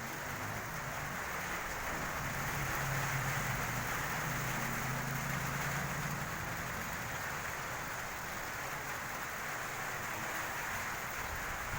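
Steady rain falling, an even hiss. A low hum rises and fades during the first half.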